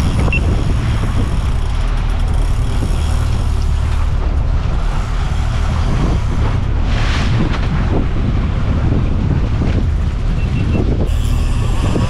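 A boat's engine running steadily at trolling speed as a low, even rumble, with wind buffeting the microphone. A brief hiss about seven seconds in.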